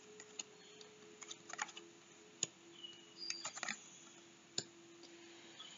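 Tarot cards being turned over and laid down on a wooden table: soft taps and brief slides of card on card, with a sharper tap about two and a half seconds in and another near the end.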